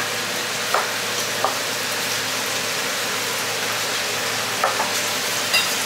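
Steady hiss of a working commercial kitchen, with a few faint knife taps as food is cut by hand.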